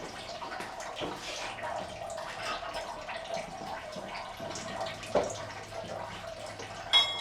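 Liquid running and trickling steadily, with a knock about five seconds in and a sharp metallic clink near the end.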